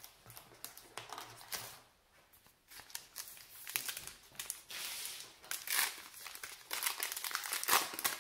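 Trading-card pack wrapper being torn open and crinkled by hand. There are a few small crackles at first, then a dense run of crinkling from about three seconds in.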